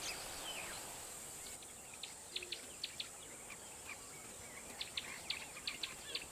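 Quiet bush ambience: a steady high insect drone with scattered short, high bird chirps, which come more often after the first second and a half.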